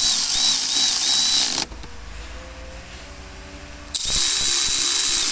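Cordless electric ratchet driving the airbox lid's Torx screws back in: the motor whirs in several quick pulses for the first second and a half, stops, then runs again steadily from about four seconds in.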